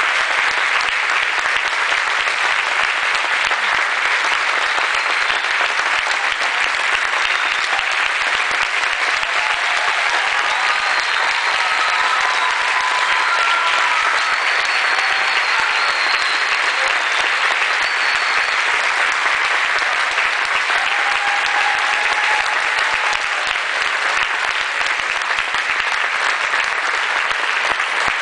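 Concert audience applauding, a dense, steady clapping that holds at the same level without a break.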